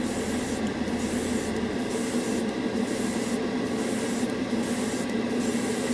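Dual-action airbrush spraying a wet coat of Humbrol acrylic paint: a steady hiss of air and paint that drops out briefly about once a second as the trigger is eased, over the steady hum of the spray booth's fan.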